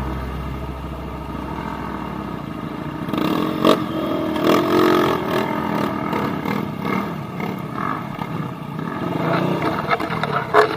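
Trail motorcycle engines revving hard, the pitch rising and falling, with scattered knocks and clatter, starting about three seconds in. A low steady tone fades out over the first couple of seconds.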